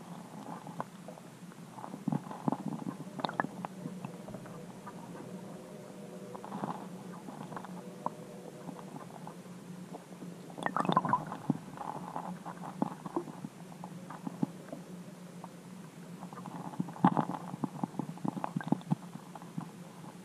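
Muffled clicks and knocks picked up by an underwater camera under the ice, in three clusters, over a steady low hum.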